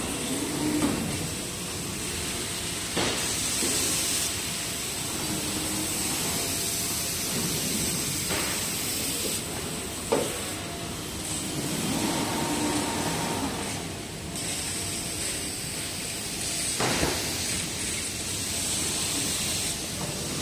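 Factory production-line machinery: a steady hiss from an automated panel-handling line with an overhead gantry and roller conveyors, broken by a few sharp knocks and clanks.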